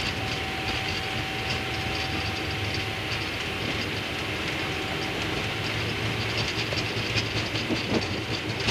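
Boeing 777 on its takeoff roll, heard from the flight deck: steady engine noise at takeoff thrust with the rumble of the wheels on the runway and repeated clicks and rattles as the aircraft accelerates.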